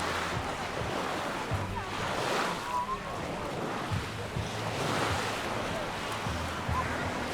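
Mediterranean surf washing onto the beach, a steady rush that swells a few times as waves break, with wind rumbling on the microphone and faint distant voices.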